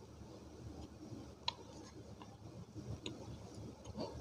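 Dry multani mitti (Fuller's earth clay) being bitten and chewed close to a microphone: three sharp crunches about a second and a half apart over soft chewing.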